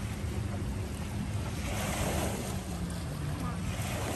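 Wind buffeting the microphone outdoors, an even rushing noise, with a low steady hum underneath that dips slightly in pitch about three seconds in.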